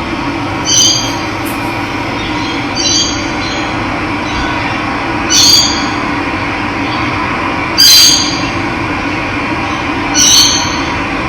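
Steady running water with a bird repeating a short, high, squealing call five times, about every two and a half seconds; the later calls are the loudest.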